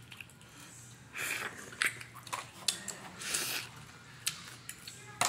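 Boiled crawfish being peeled and eaten by hand: shells cracking in a few sharp clicks, and several short hissing sucks at the crawfish, with chewing.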